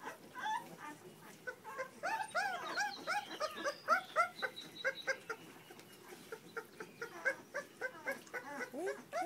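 Young puppies whimpering: a few faint calls, then from about two seconds in a quick run of short high-pitched whines, each rising and falling in pitch, about two to four a second.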